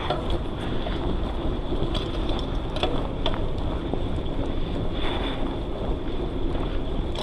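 Wind rushing over an action camera's microphone on a moving bicycle, with steady rolling noise and a few sharp clicks about two to three seconds in.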